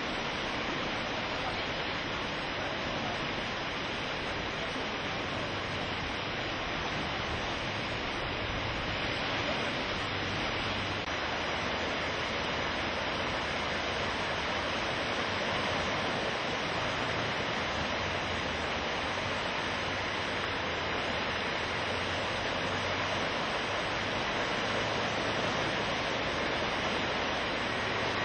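Swollen, muddy river in flood rushing past: a steady, unbroken rush of water noise.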